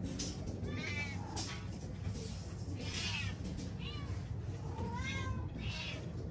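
Caged cats meowing, about five separate meows, each rising then falling in pitch, over a steady low hum.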